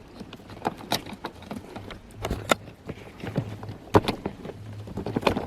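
Irregular sharp clicks and knocks of a plastic wiring connector under a car seat being worked by hand, fingers pressing and pulling at its locking tab without it coming free.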